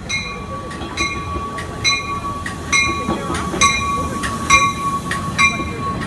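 Stadler GTW diesel multiple unit train pulling into a station platform with its bell ringing steadily, about once a second. About three seconds in, a low rumble of the engine and wheels builds as the cars pass close by.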